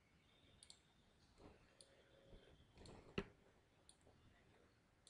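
Faint, scattered clicks of a computer mouse, about five in all, the loudest a little over three seconds in.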